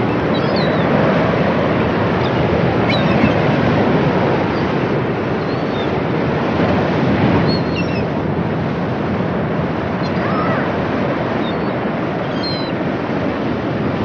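Steady rushing noise, like surf or wind, swelling and easing slowly, with a few short high chirps scattered through it.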